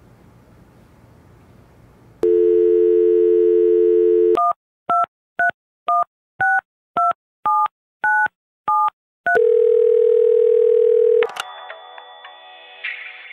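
Telephone dial tone for about two seconds, then a number being dialled on touch-tone keys: about nine short two-note beeps, roughly two a second. A steady single tone follows for about two seconds, and music starts near the end.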